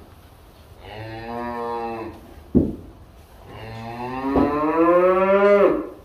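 Black Angus cattle mooing twice: a short moo, then a longer, louder one that rises in pitch. A sharp knock falls between the two calls, and a lighter one comes during the second.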